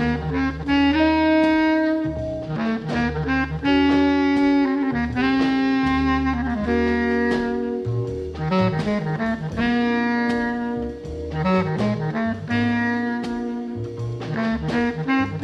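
1964 small-group jazz record: the horns play long held notes together, several pitches at once, over walking bass and drums with cymbals. Each held phrase lasts a second or two and the next one follows straight on.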